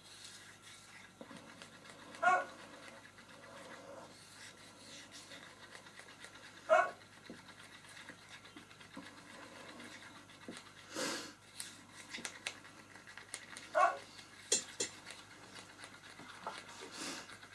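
Pet dog barking, single short barks a few seconds apart, about four times: wanting his dinner.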